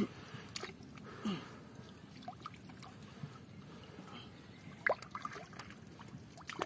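Quiet, small splashes of shallow pond water as hands work around a submerged plastic basket trap, with a few brief sounds breaking a low background.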